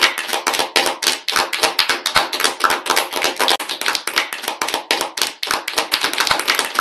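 Applause: many people clapping their hands in a dense, uneven patter.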